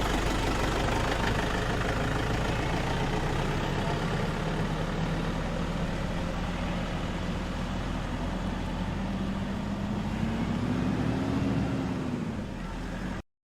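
A vehicle engine running steadily, with a low hum that slowly rises in pitch over the second half. It cuts off suddenly near the end.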